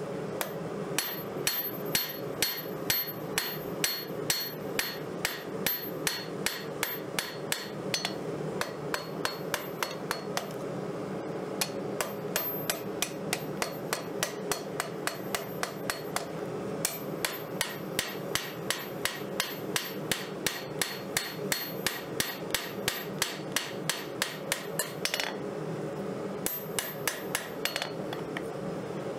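Hand hammer forging a hot bar of 5160 spring steel on an anvil into a knife blade: steady blows about three a second, each with a short high metallic ring, pausing briefly twice.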